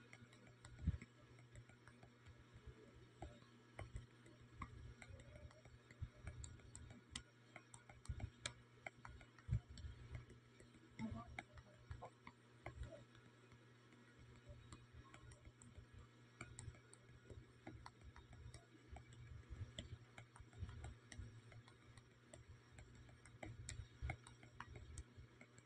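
Near silence: faint, irregularly spaced clicks and ticks over a low steady hum.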